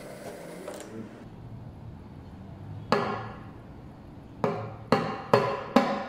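DeLonghi espresso machine's steam wand hissing in frothed milk, cutting off a little under a second in. Then a stainless steel jug of steamed milk knocks on the stone countertop, once about three seconds in and four times in quick succession near the end, each knock ringing briefly.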